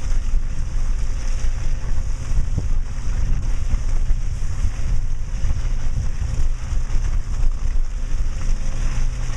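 Steady low rumble of a Subaru Outback being driven along a muddy dirt mountain trail, with wind noise on the microphone.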